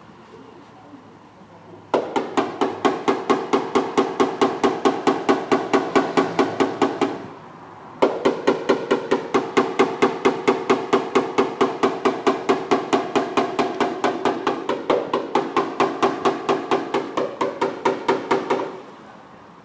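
Light, rapid, evenly spaced hammer taps in paintless dent repair, a tap-down tool being struck to knock down high spots on a car body panel. Two long runs of several taps a second, with a short pause between them about seven seconds in.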